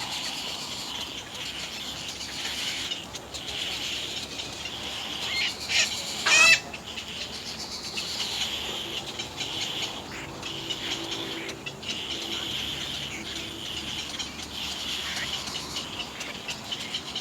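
A bird's short, loud call about six seconds in, over a steady high-pitched background hiss.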